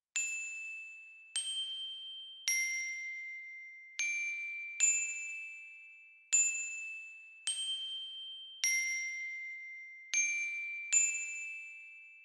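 Opening of an ambient pop track: a slow melody of about ten single high, bell-like struck notes at changing pitches, each ringing out and fading before the next.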